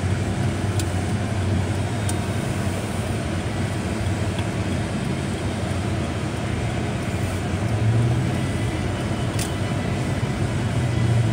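Car driving, heard from inside the cabin: a steady low engine hum under even road and tyre noise, with a few faint clicks.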